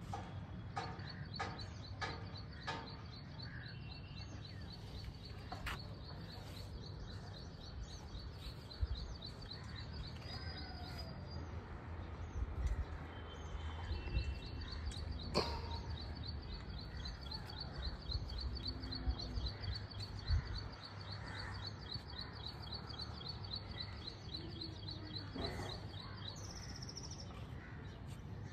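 Outdoor ambience: birds chirping, with a long, high, rapidly pulsing trill that breaks off about a third of the way through and then resumes, over a steady low rumble.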